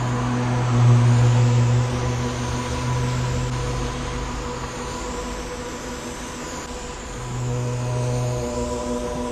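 Road traffic on a wet street, with a steady low vehicle hum that fades out about five seconds in and comes back briefly near the end.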